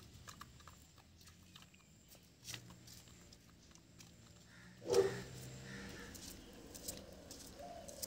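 A rooster and a hen pecking feed off a concrete ledge: scattered faint taps, with one short, louder animal call about five seconds in.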